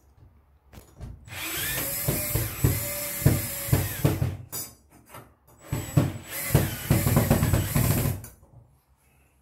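DeWalt cordless drill running under load in two bursts of about three seconds each, with a short pause between, boring through a steel light-fixture mounting bracket into a textboard ceiling.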